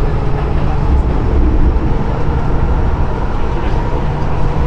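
MTR M-train running at speed, heard inside the carriage: a steady, loud rumble of wheels on rail and running gear with a faint steady tone above it.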